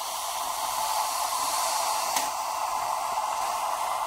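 Brazing torch flame hissing steadily while copper refrigerant lines are brazed onto an air handler's A-coil, with a faint tick about two seconds in.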